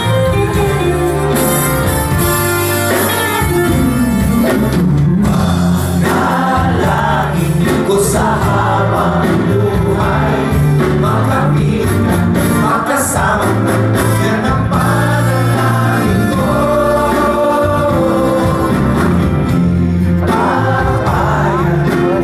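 Live pop band with keyboards and drums playing a song, with men's voices singing a melody from about six seconds in.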